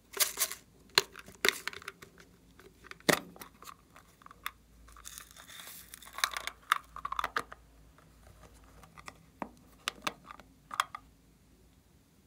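Sharp clicks and taps of plastic containers being handled, then glitter, sequins and foam beads poured out of a small plastic tub into a glass dish with a brief rattling hiss about five seconds in, followed by more light crinkly ticks and clicks.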